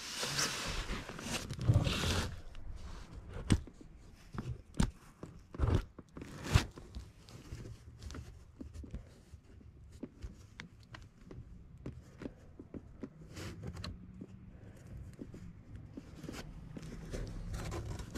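Handling noise as a comic book and nearby items are picked up and looked over: rustling in the first couple of seconds, then scattered light clicks and knocks, the sharpest about six and a half seconds in.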